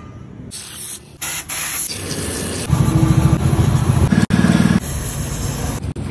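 A quick run of short workshop clips that start and stop abruptly: a stiff brush scrubbing bicycle parts in a solvent parts washer, with a steady hissing spray.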